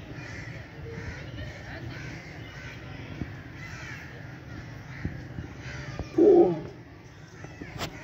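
Crows cawing and small birds chattering in the background, with one loud, short call close by about six seconds in.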